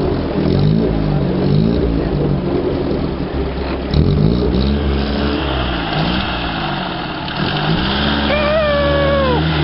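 Small vintage four-cylinder car engine running and revving up and down several times. Near the end a high, wavering tone slides down in pitch and stops.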